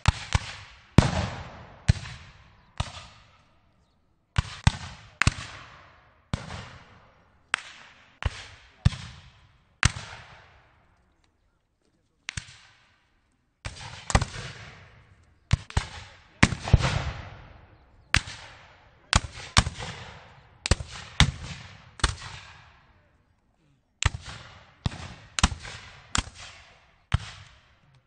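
Rifle-musket shots fired at random, irregular intervals. Each is a sharp crack followed by a fading reverberant tail, sometimes overlapping into scattered volleys, with brief pauses of a second or so between groups.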